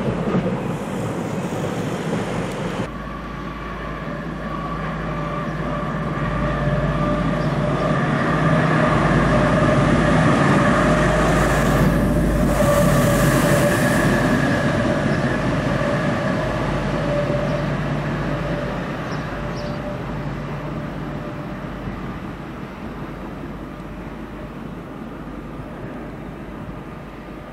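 A diesel locomotive running on its own passes by. Its engine hum, with several steady tones, grows louder, peaks about twelve seconds in with a brief hiss as it goes by, then slowly fades away.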